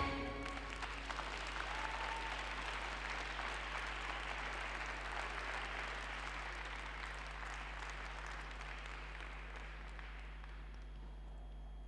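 Audience applauding as the music stops, the applause slowly dying away over about ten seconds.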